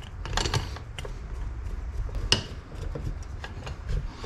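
Small metallic clicks and taps of a screwdriver working parts loose on a Carter two-barrel carburetor, a few scattered ticks with the sharpest about two seconds in.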